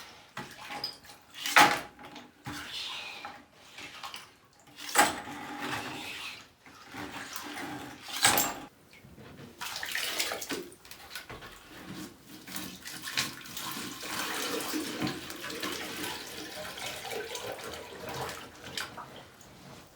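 Flood water splashing and sloshing, with three sharp loud splashes or knocks in the first half, then a steadier run of water noise.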